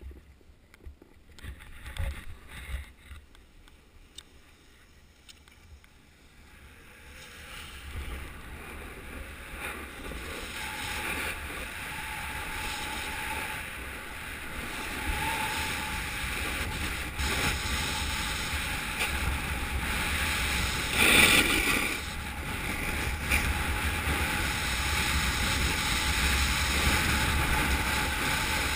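Wind rushing over the microphone and skis hissing on packed snow, building from a few scattered clicks into a steady rush as the skier picks up speed downhill, with a brief louder burst about two-thirds of the way through.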